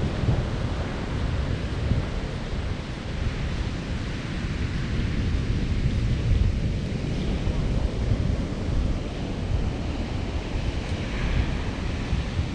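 Wind buffeting the microphone over a steady wash of ocean surf, a continuous rushing noise with low, fluttering gusts.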